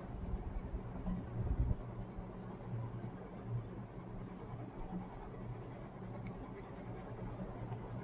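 Coloured pencil scratching steadily on paper as a picture is coloured in, over a steady low hum, with a low bump about one and a half seconds in.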